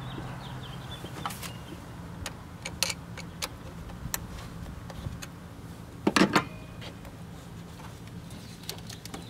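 Scattered small metal clicks of a wrench loosening the hose clamp on a turbocharger's intake, with a louder clatter about six seconds in as the intake is worked loose, over a steady low hum.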